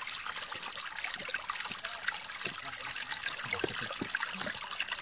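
Water trickling and splashing steadily, with many small crackles in the flow.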